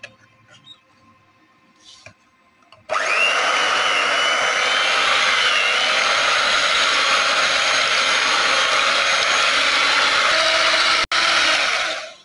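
Electric hand mixer running steadily with a motor whine, its beaters whipping whipping cream into cooled custard in an aluminium pot. It starts about three seconds in, cuts out for an instant near the end and stops just before the end.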